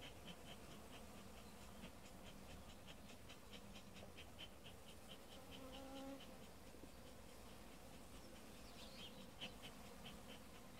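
Faint buzzing of honeybees around an open hive, under an even run of short high chirps, about four or five a second.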